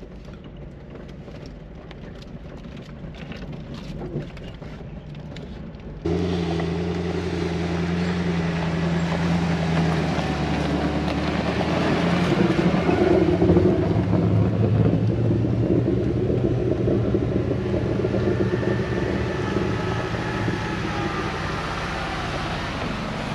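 Off-road SUV engines running at low revs while crawling down a steep dirt track in first gear, held back by engine braking. A faint in-cab engine hum cuts suddenly about six seconds in to a much louder outside sound as a Jeep Grand Cherokee passes close by, loudest a few seconds later, followed by a Mercedes G-Class.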